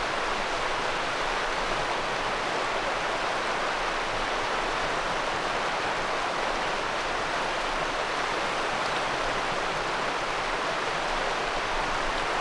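Shallow river water running steadily over a stony bed, an even rushing with no distinct splashes.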